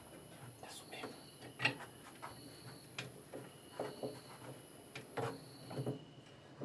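Irregular light clicks and knocks of metal parts and tools being handled, as a car jack is worked to pull a washing machine's basket off its shaft.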